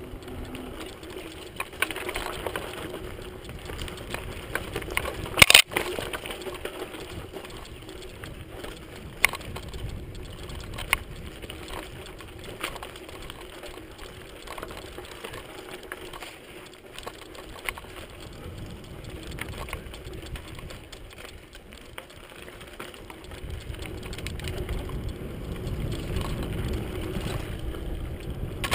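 Mountain bike ridden fast down a dirt singletrack: tyres rolling over dirt and loose stones, with the bike rattling in frequent sharp clicks and knocks and one loud clack about five and a half seconds in. Wind rumble on the microphone grows over the last few seconds as the speed picks up.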